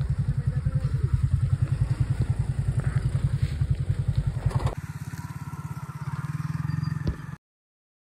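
Motor scooter engine running with an even low throb. A little under five seconds in it changes abruptly to a quieter throb of the same kind, and the sound cuts off dead near the end.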